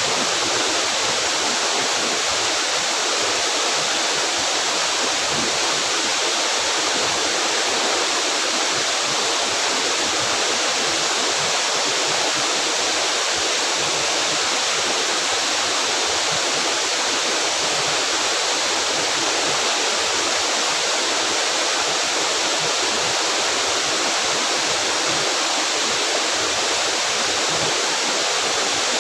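Waterfall's falling water rushing in a steady, unbroken roar of white-noise-like spray and splash.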